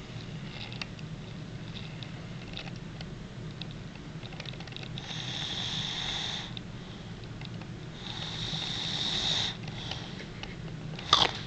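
A man snoring in deep sleep: two long, noisy breaths, each about a second and a half, over a steady low hum. A brief loud noise comes just before the end.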